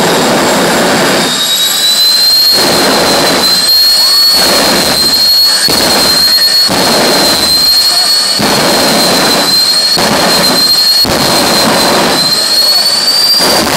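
Jet dragster's turbine engine running very loud with a steady high whine that creeps up in pitch near the end. The roar swells and falls about once a second.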